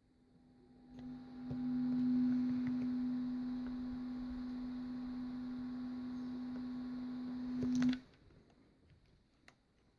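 Electric transformer soldering gun humming steadily while its trigger is held. The hum builds over the first second or two and cuts off suddenly about eight seconds in.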